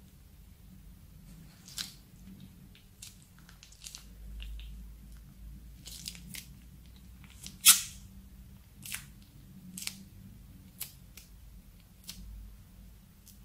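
Plastic piping bag crinkling and clicking as it is squeezed by hand to pipe out slime, in scattered short crackles with one sharper, louder crack just past the middle.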